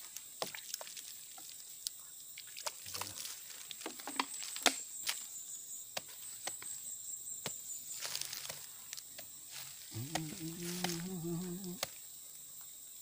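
Machete blade cutting into the rind of a tarap fruit held in the hand, giving scattered light clicks and scrapes. A thin, high insect drone comes and goes in the background, and a person's voice is heard briefly about ten seconds in.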